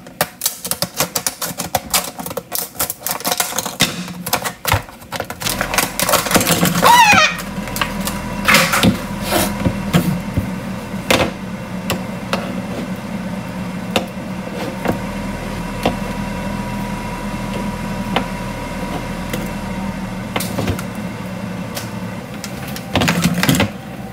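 Scissors cutting into a stiff plastic blister pack, a quick run of crackles, snips and crinkles. After that come only occasional clicks and rustles over a steady hum.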